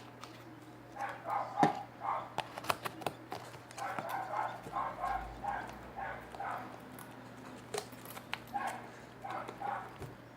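A dog barking repeatedly in quick runs of short barks, over a steady low fan hum, with scattered sharp clicks and pops from slime being kneaded by hand.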